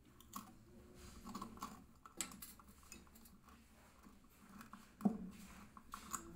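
Small clicks, clinks and scrapes of a fuse carrier with brass contacts being handled and pushed into its base, with a sharper knock about five seconds in.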